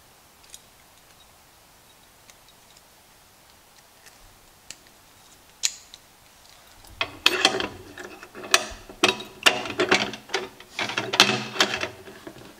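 A padlock being handled and its shackle hooked through a welded steel U-bolt loop on a steel ammo can lid: a few faint clicks, then about seven seconds in a quick run of metal clinks and rattles, lock against can.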